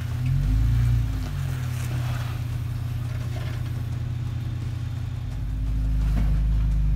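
Jeep Wrangler Rubicon's engine running at low revs as it crawls over boulders. The revs rise and fall briefly in the first second, then hold steady, and the sound grows louder about five seconds in.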